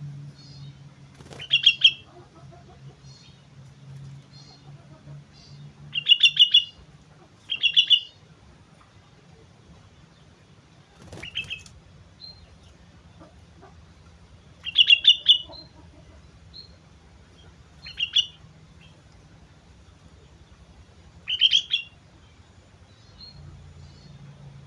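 Sooty-headed bulbul (kutilang) singing in short, loud phrases of quick notes, about seven phrases a few seconds apart, with faint chirps between them.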